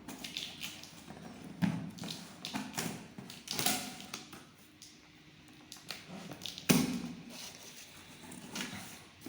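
A cardboard product box being opened and handled: irregular taps, knocks and scrapes, with a few louder knocks.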